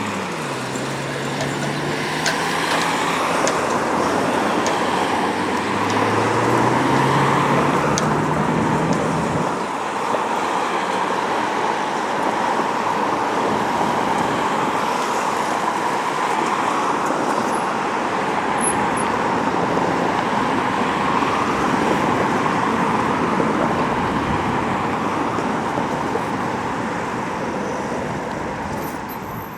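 A vehicle going past with a steady, loud rolling noise. Its engine note drops right at the start and climbs again between about six and nine seconds in.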